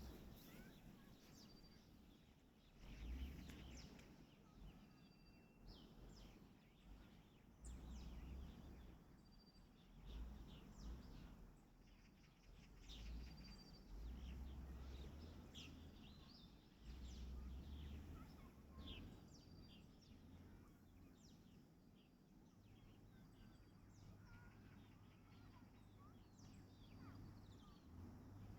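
Faint birds chirping and calling, with short calls scattered throughout, over intermittent low rumbles.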